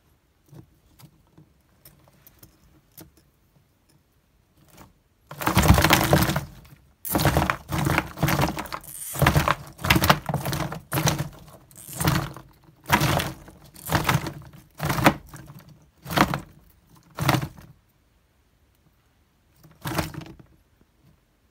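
Pine-bark chip substrate clattering and scraping against a plastic tub as a rough-scaled plated lizard shakes and thrashes a Djungarian hamster held in its jaws. It starts with faint scuffling, then comes in loud clattering bursts about once a second from about five seconds in, with a last burst near the end.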